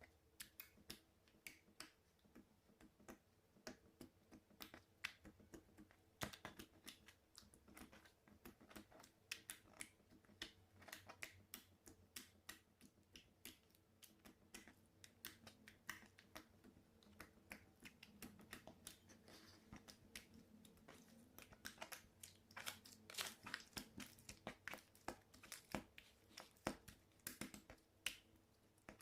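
Slime being handled, giving an irregular run of quiet sharp clicks and pops, several a second.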